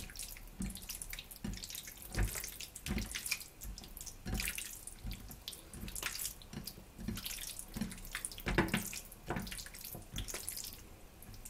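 Wet squelching of a hand kneading sliced pork in a bowl of sauce marinade, in repeated irregular squishes.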